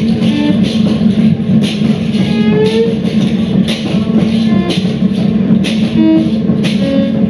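Live instrumental music: a steady low drone under scattered short pitched notes, with a sharp hit about once a second.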